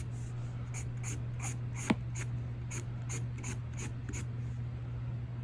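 Quick short strokes of a drawing tool scratching on paper, about three to four a second, thinning out near the end, over a steady low hum. A single sharp tick comes about two seconds in.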